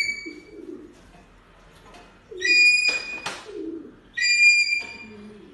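Pigeons cooing low, with two loud high-pitched bird calls about two and four seconds in, and two sharp knocks between them.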